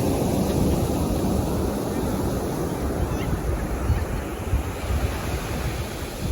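Calm sea waves washing onto a sandy beach, a steady surf sound, with wind rumbling on the microphone.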